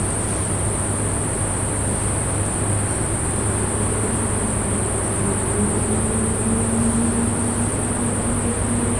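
A steady high-pitched drone over an even hiss and a low hum, with faint sustained low tones joining about three and a half seconds in.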